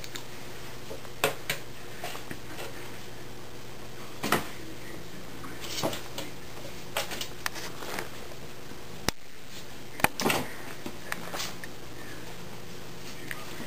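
Kittens moving about and playing: scattered light taps and scratches of paws and claws on a hard surface, over a steady low hum.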